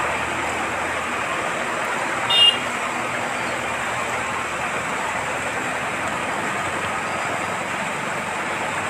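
Floodwater rushing down a street, a steady rushing noise from the fast, turbulent current. About two and a half seconds in, a short high-pitched sound briefly stands out above it.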